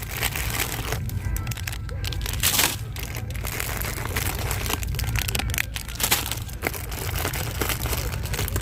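Crinkling plastic candy packaging being handled, with scattered small crackles and clicks, over background music.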